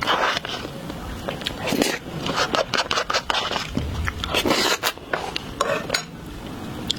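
Chocolate ice cream being eaten close to the microphone, ASMR-style: irregular scraping and biting sounds with sharp little clicks.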